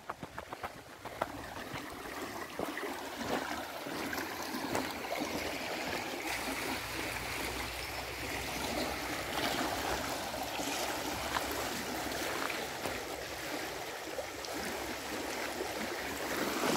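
Shallow river flowing over a pebble bed, a steady rushing and trickling of water that grows louder about a second in.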